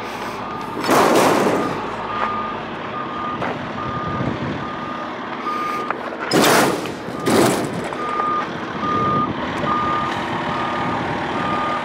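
Vehicle reversing alarm beeping, a short high tone repeated about twice a second, over a background of engine noise. Two louder bursts of rushing noise come about a second in and again about six seconds in.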